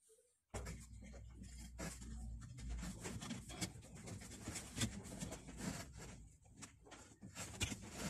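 Scattered rubbing and clicking as hands work the drive belt onto the twin tub spin dryer's motor pulley, over a faint steady low hum that starts about half a second in.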